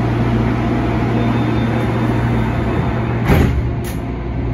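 Steady hum inside a CAF-built MTR Tung Chung line train car, a low drone with fainter steady tones over it. A thump comes about three seconds in, with a click just after.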